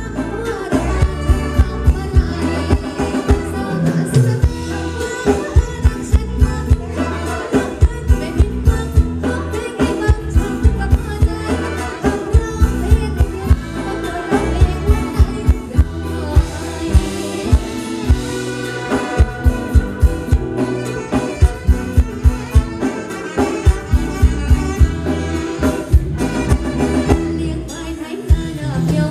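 Live band playing a Thai ramwong song through stage speakers: a woman singing lead over electric guitar, bass and a steady drum beat.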